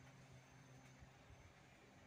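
Near silence: faint background hum.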